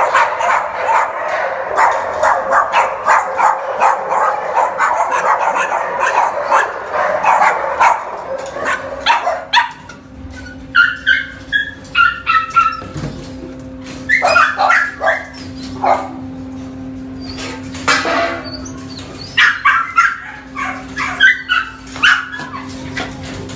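Many dogs barking at once in a kennel, a dense overlapping din that thins after about ten seconds into scattered barks, high yips and whines. A steady low hum runs underneath from then on.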